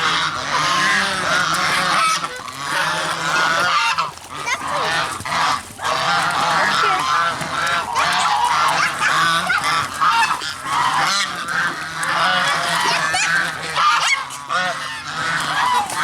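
A flock of geese honking continuously, many calls overlapping, with brief lulls about four and six seconds in.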